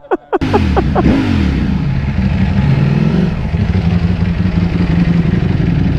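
Sportbike engine running as the bike is ridden at low speed. The revs fall off in the first second, then it runs steadily at low revs with only slight rises.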